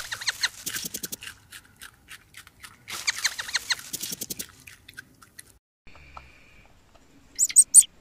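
A young rabbit chewing a piece of carrot held out by hand: quick runs of small crisp crunching clicks, twice. A few louder, sharper bursts come near the end.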